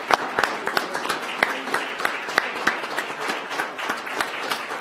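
Applause from a roomful of people, separate hand claps coming thick and irregular.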